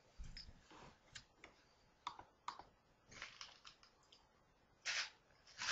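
Faint scattered clicks and rustles, with two short hissing bursts near the end.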